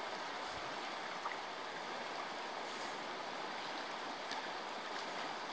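Shallow river current running steadily over a stony bed, a constant rippling rush of water.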